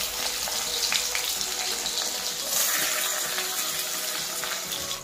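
Sliced onions sizzling in hot oil in a kadai, a steady hiss of frying.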